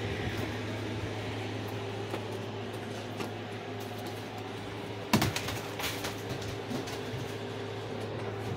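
Window air conditioner running with a steady hum. A sharp knock comes about five seconds in, with a few lighter taps around it.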